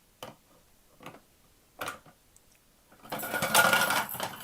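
A few light plastic clicks, then about three seconds in a small plastic toy dump truck rattling as it rolls down a plastic toy ramp, lasting a little over a second.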